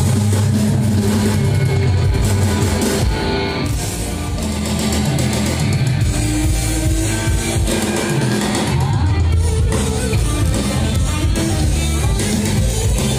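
Loud rock music with electric guitar and drum kit, running continuously.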